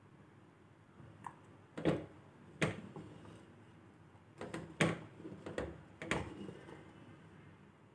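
A wooden spoon knocking and scraping against a clay handi as it stirs and lifts thick rajma gravy: several short, irregular knocks, the loudest around two and five seconds in.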